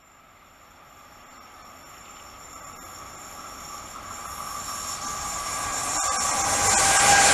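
Freight train of tank wagons approaching on the rails, growing steadily louder throughout and reaching full loudness near the end. Steady high ringing tones run over a rushing rail noise.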